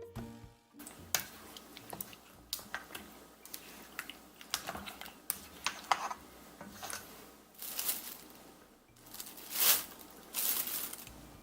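Kitchen handling sounds during fried-chicken preparation: scattered light clicks and taps with a few short rustles, the loudest rustle a little before the end.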